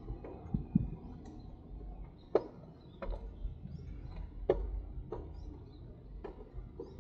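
Bicycle in motion: sharp irregular clicks and knocks about once a second over a low rumble.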